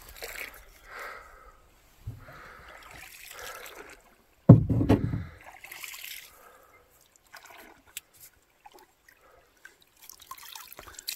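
A paddle dipping and pulling through calm lake water beside a small boat, with water trickling and dripping off it. A single loud low thump comes about four and a half seconds in.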